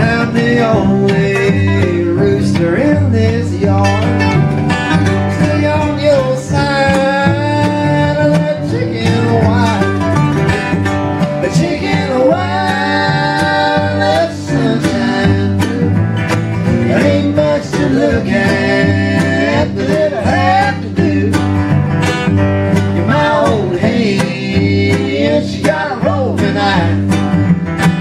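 Acoustic string band playing a country/bluegrass song live: strummed steel-string guitar, fiddle, mandolin and cello. A melody line slides between notes over a steady strummed beat.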